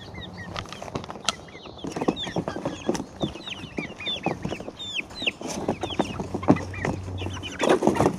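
A group of young chickens in a wire crate cheeping over and over, many short falling peeps. Knocks and rattles from handling the crate and fence come through, loudest near the end.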